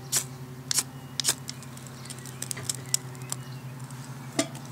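A fire steel (ferro rod) scraped with a multitool's striker: three sharp rasping strikes in the first second and a half, then a few light clicks of metal handling, as the Vaseline-soaked cotton wool tinder catches. A steady low hum runs underneath.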